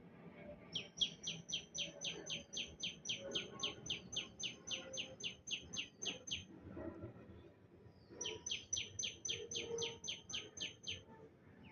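A bird singing two long series of rapid, evenly repeated high notes, each note sliding downward, about four a second; the second series starts after a pause of about two seconds.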